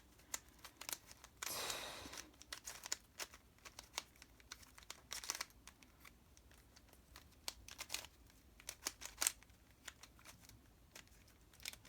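Fisher cube, a plastic 3x3 shape-mod puzzle, being turned by hand: irregular quick clicks and clacks as its layers turn, with two longer scraping rushes, about one and a half seconds in and again about five seconds in.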